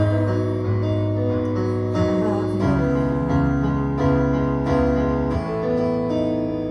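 Instrumental music with no singing: held chords that change every second or two.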